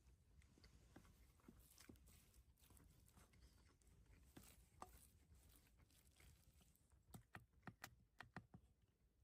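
Near silence with faint, scattered small clicks and ticks, and a quicker run of them about seven to eight and a half seconds in.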